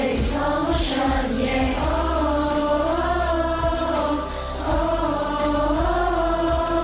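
Background music: a slow song with sung vocals holding long notes.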